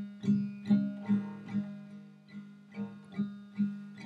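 Acoustic guitar strummed in a steady chord pattern, about two to three strums a second, with a short break about two seconds in.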